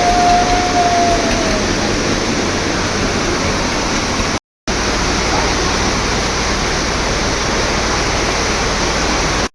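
Steady, loud rushing of rain and floodwater. It cuts out for a moment about four and a half seconds in, and a faint held tone sounds over it at the start.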